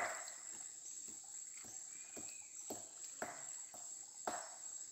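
Hands groping in a shallow muddy stream pool, making several short, sharp splashes, the loudest at the very start. Behind them, a steady high-pitched drone of insects.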